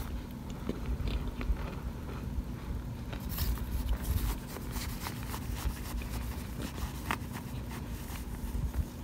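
Plastic spoon scraping and crunching through a pan of oven-baked cornstarch chunks, giving scattered crisp crackles that come thickest a few seconds in.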